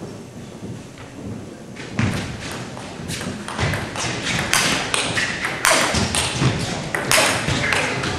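Table tennis rally: the celluloid ball clicking off the bats and bouncing on the table, starting about two seconds in and coming several times a second as the exchange speeds up.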